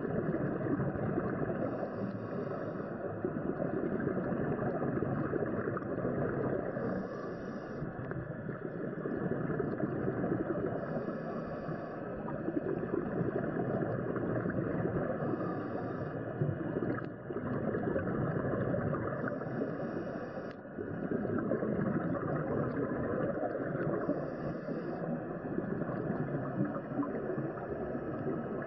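Muffled underwater rushing and bubbling heard by a diver's camera on a scuba dive. A brief hiss of regulator breathing comes round about every four to five seconds.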